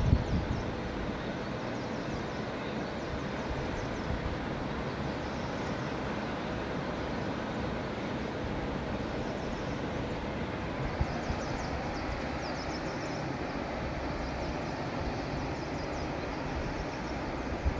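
Steady rushing of a swollen river, with faint high chirps repeating in short runs near the start and again about two-thirds of the way through.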